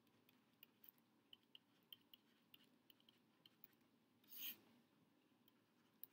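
Faint taps and scratches of a stylus writing by hand on a pen tablet, a string of light ticks a few times a second. About four seconds in comes one longer, louder scratching stroke, a line drawn across.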